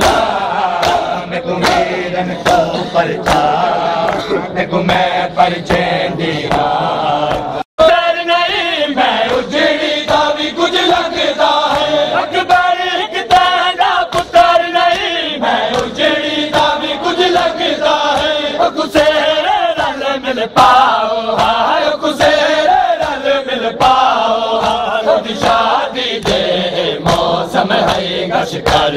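Men chanting a noha, a Shia lament, in unison, with rhythmic chest-beating (matam): sharp slaps landing together at a steady beat in time with the chant. The sound drops out abruptly for an instant about eight seconds in, and afterwards the chanting voices come through more clearly.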